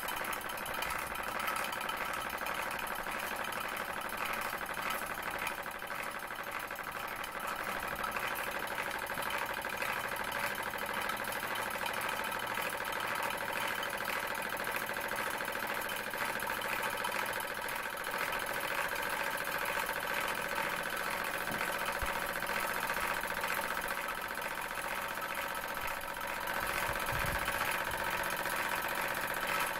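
Bowman M101 model stationary steam engine running steadily under steam, a fast, even mechanical chatter of its cylinder and flywheel. It grows a little louder over the last few seconds.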